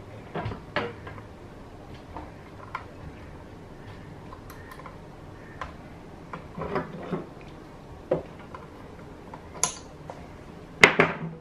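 Scattered small clicks and taps of a motherboard's CMOS coin-cell battery being swapped in its holder, the sharpest click near the end.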